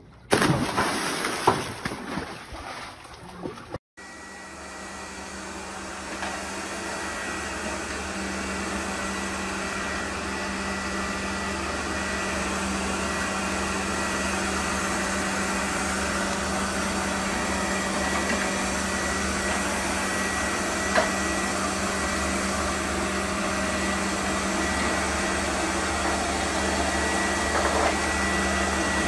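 Robot vacuum cleaner running with a steady hum and a thin, high whine, slowly growing louder, with one small click about three-quarters of the way through. A few sharp knocks in the first few seconds come before it starts.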